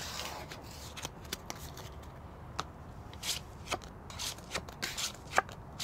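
Playing cards being gathered and dealt onto a wooden tabletop: a run of short, irregular card flicks and slides.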